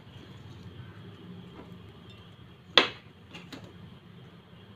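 Low steady background hum, with one sharp click about three seconds in and two fainter clicks soon after.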